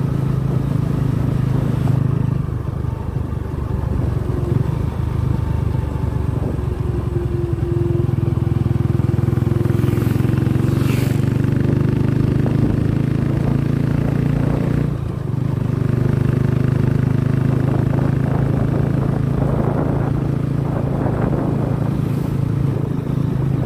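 Motorcycle engine running steadily while riding along a road. The engine eases off briefly about fifteen seconds in, and a short high-pitched sound rises about ten seconds in.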